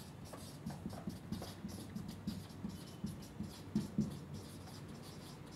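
Marker pen writing on a whiteboard: a run of short, faint squeaks and scratches as letters are written.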